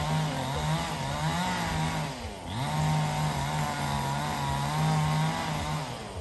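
Two-stroke chainsaw running at high revs while cutting into a tree being felled, its pitch wavering with the load. About two seconds in the revs drop sharply and climb back, and near the end they fall away.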